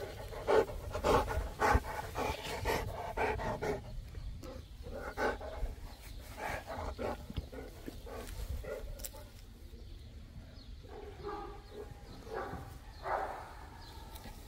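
Boerboel dogs making a run of short vocal sounds close to the microphone, densest and loudest in the first four seconds and coming again in a short cluster around eleven to thirteen seconds in.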